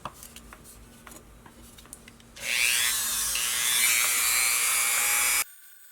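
Dremel rotary tool grinding down cured JB Weld epoxy on a plastic hinge, with a high-pitched whine. It starts about two seconds in after a few light handling clicks, runs for about three seconds and cuts off suddenly.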